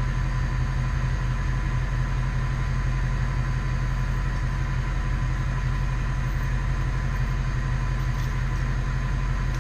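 Bucket truck's engine running steadily at an even pace, with a constant low hum and a faint steady whine above it.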